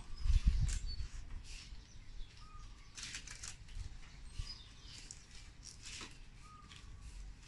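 Green coconut-leaf strips rustling and scraping as they are pulled and tucked through a woven hat brim. Dull low knocks from handling come in the first second.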